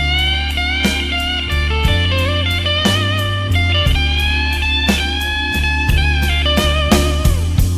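Blues band playing an instrumental break: an electric guitar solo with bent, sliding notes over steady bass and a drum beat.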